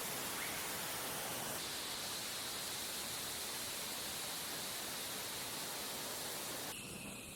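Jet engine noise: a steady rushing hiss with a faint high whine. The sound changes abruptly about a second and a half in, and again near the end, where it turns quieter and the whine drops lower.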